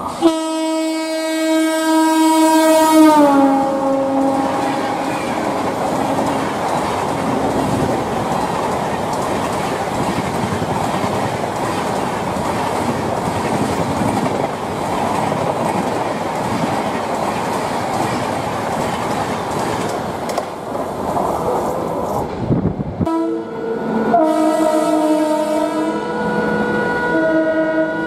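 Locomotive horn sounding as an express passenger train speeds past, its pitch dropping as the locomotive goes by. It is followed by the steady rush and rumble of the coaches running through for about twenty seconds. After an abrupt cut, another train's horn sounds several times as a train approaches.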